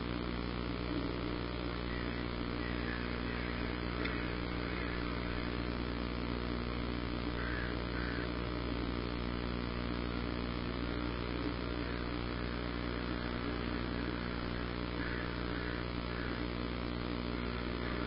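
Steady low hum with several fixed tones over a faint hiss. Faint short bird calls come through it three times.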